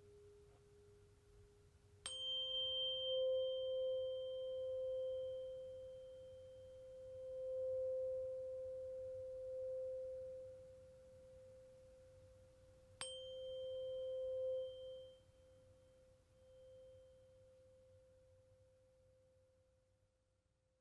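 A tuning fork struck twice, about eleven seconds apart. Each strike gives a brief bright ping, then a long pure hum that wavers in loudness as it rings out. At the start, a lower tone from an earlier strike is fading away.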